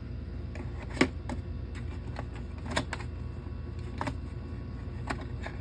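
Plastic board game miniatures clicking and tapping against a plastic box insert and each other as they are handled and picked out: about half a dozen irregular sharp clicks, the sharpest about a second in. A steady low hum runs underneath.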